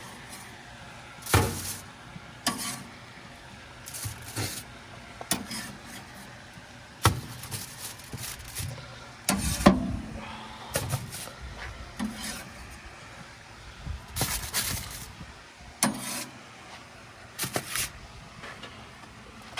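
Scattered scrapes, clanks and knocks as burgers are lifted off the metal cooking grate of an offset smoker, with irregular rubbing sounds between the hits.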